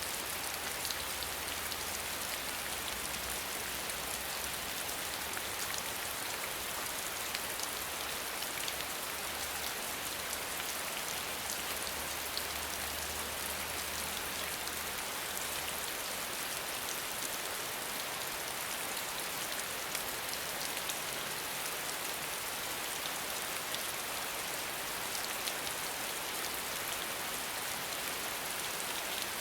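Steady rainfall: an even hiss with many small drop ticks scattered through it. A faint low rumble underneath fades out about halfway through.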